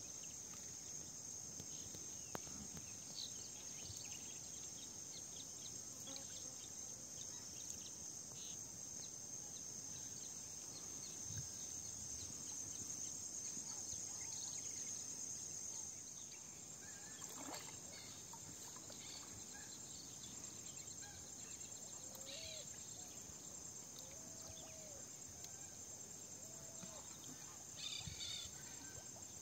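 Steady high-pitched insect chorus, with a few faint short chirps and calls over it.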